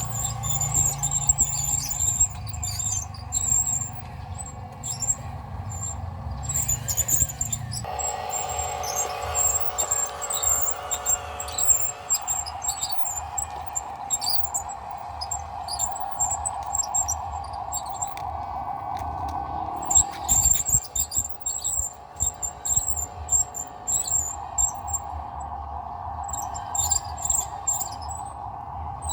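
Insects, crickets among them, chirping steadily in a high, ticking trill, over a steady mid-pitched drone. A low rumble runs underneath and stops about eight seconds in.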